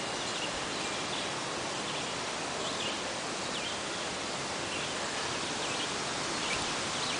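Steady outdoor background hiss, with a few faint, short high chirps scattered through it.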